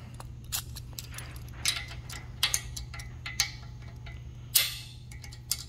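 Knipex pliers wrench being adjusted and set against a large nut: a handful of irregular sharp metal clicks as the button is pressed and the jaw slides and seats. The loudest click comes about four and a half seconds in.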